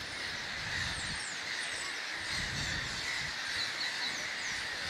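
Outdoor ambience of many birds calling at once: a steady hiss of distant calls with short high chirps dropping in pitch scattered throughout.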